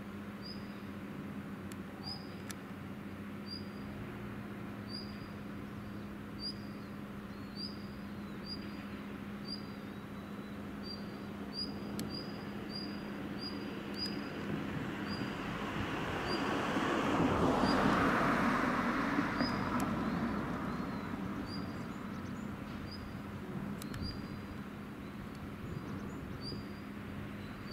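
Outdoor waterfront ambience: a steady low machinery hum, with a bird giving short high chirps about once a second throughout. About halfway through, a broad rushing noise swells for several seconds and then fades.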